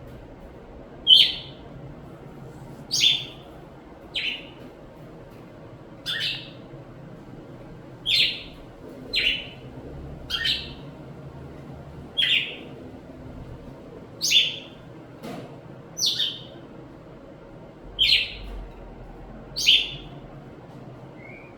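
A bird calling: short, sharp, high chirps, each dropping quickly in pitch, repeated about every one and a half seconds.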